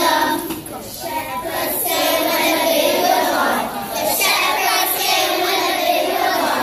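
Children's choir singing a Christmas carol together, with a brief dip between phrases about a second in.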